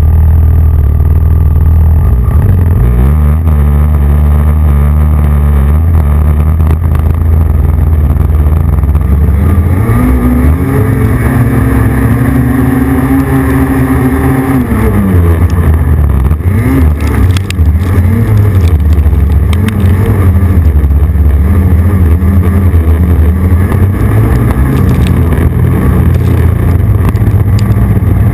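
Snowmobile engine running hard on an uphill climb in snow, its pitch rising about three seconds in and again around ten seconds, dropping back near fifteen seconds, then rising and falling with the throttle.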